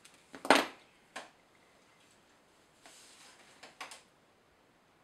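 Handling noise of small tools and objects on a workbench: a sharp knock about half a second in, a lighter knock just after, then a brief rustle and a couple of clicks near the end.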